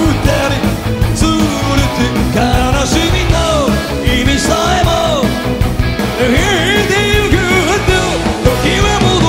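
Live rock band playing: a male lead singer sings over drums, bass, guitar and keyboards with a steady beat.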